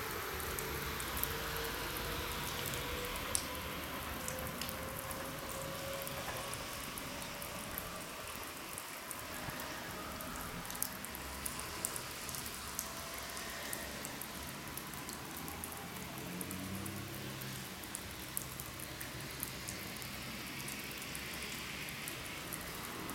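Steady rain with scattered drops ticking close by. Under it, the motor tone of a departing 211 series electric train rises slowly in pitch over the first several seconds as it pulls away and fades.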